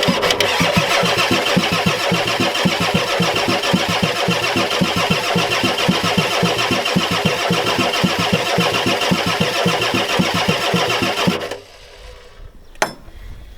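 Starter cranking the 1993 Ford F-250's 7.3-litre IDI V8 diesel steadily for about eleven seconds without it firing, then stopping, with a single click a second later. The injector lines are cracked open and fuel has not yet come up to them; the owner thinks the fuel pump must be bad.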